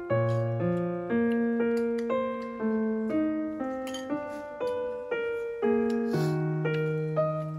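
Background piano music: a gentle melody of single notes, about two a second, each struck and fading, over a lower bass line.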